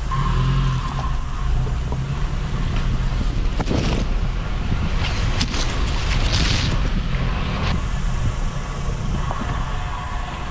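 Mitsubishi L300 Delica van's engine running as the van moves slowly along a bush 4WD track. There is a single knock just before four seconds in. From about five seconds, ferns and scrub scrape and rustle along the side of the body for a couple of seconds.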